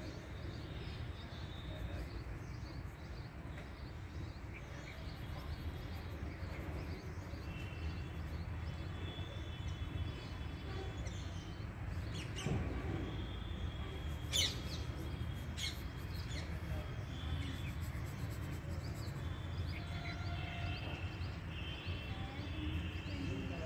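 Birds chirping on and off over a steady low background rumble, with three sharp clicks a little past the middle.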